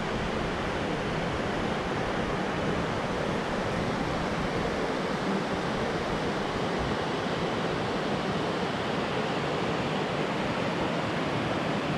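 Steady rush of a rocky river flowing over rapids: an even noise that does not change.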